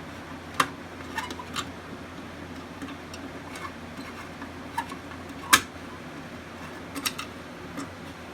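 Scattered sharp clicks and knocks of a Pyrotronics MS-51 pull station being handled and opened to reset it, about nine in all, the loudest a little past halfway. A steady low hum runs underneath.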